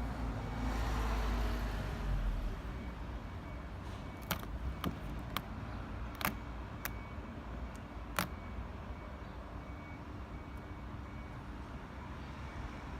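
A low vehicle rumble fades out about two and a half seconds in. Then about six sharp light clicks and taps follow over the next four seconds, like a plastic weathershield being handled and pressed against the car door.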